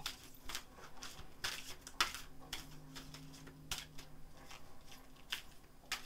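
Tarot cards being shuffled hand over hand: soft, irregular card slaps and clicks, a few a second.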